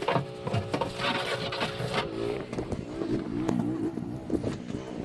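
Pressure washer running, its motor's pitch wavering in the second half, with clicks and the hiss of spray in the first couple of seconds.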